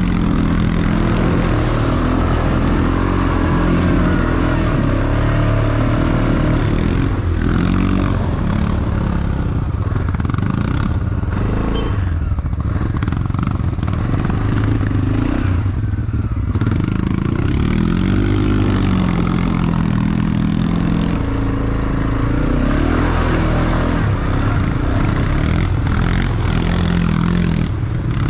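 ATV engine running under load, its revs rising and falling again and again as the quad is ridden through ruts and mud puddles, with some clattering.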